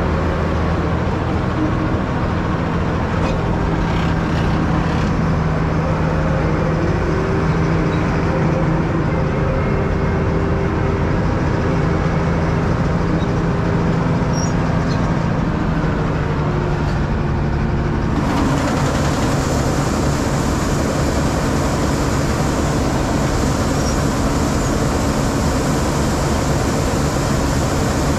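Diesel engine of farm harvest machinery running steadily at working speed. About two-thirds of the way in, a loud rushing hiss suddenly joins it.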